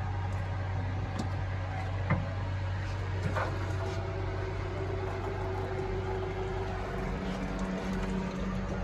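Steady low machine hum with a few light clicks, and a second steady tone joining near the end.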